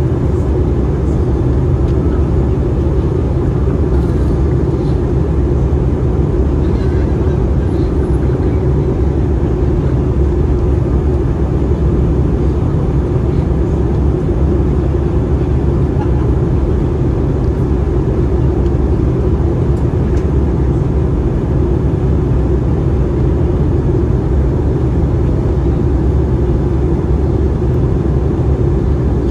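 Steady cabin roar inside an Airbus A320-214 in flight, from its CFM56 engines and the airflow past the fuselage, heard from a forward window seat. It is a deep, even rumble with no changes.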